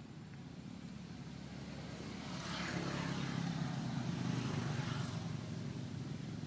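Engine hum, growing louder over the first few seconds and easing slightly near the end.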